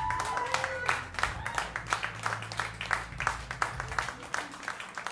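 Small audience applauding at the end of a song, many scattered hand claps with a couple of short cheers near the start. A low sustained tone from the band runs underneath and stops about four seconds in.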